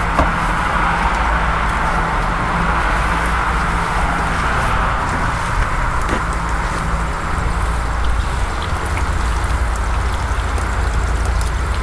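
Purified water spraying from the jets of a water-fed pole brush and running down window glass, a steady hiss and splash over a low, steady hum.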